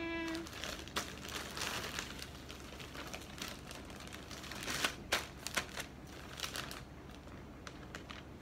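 Plastic bags crinkling and rustling as they are handled: a plastic courier mailer and the clear plastic bag of a shirt. The rustling comes in irregular bursts, with a few louder crackles about five seconds in.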